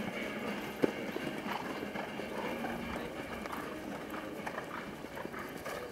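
Hoofbeats of a show-jumping horse cantering on grass turf, over a busy background, with one sharp knock a little under a second in.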